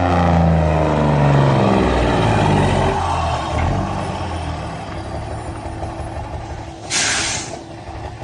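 Truck engine running with its pitch falling over the first few seconds, then fading to a low rumble, followed by a short sharp hiss of air brakes about seven seconds in.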